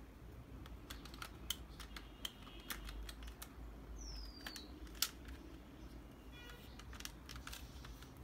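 Light plastic clicks and taps of a laser printer toner cartridge's two halves being fitted back together and handled, with a sharper click about five seconds in. A brief high, falling chirp sounds about four seconds in.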